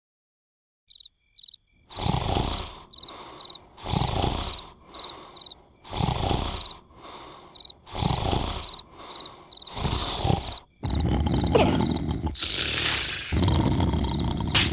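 Cartoon snoring, loud swells about every two seconds, with crickets chirping steadily between them. About three quarters of the way in, the snores grow longer and louder and run into one another.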